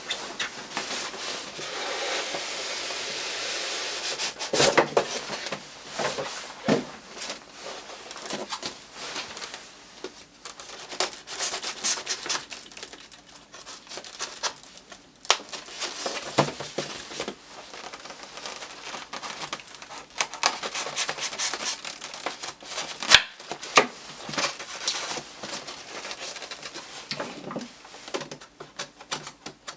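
Model packaging being opened by hand: a few seconds of steady rubbing or tearing, then irregular rustling, crinkling and sharp clicks of packaging material being pulled apart.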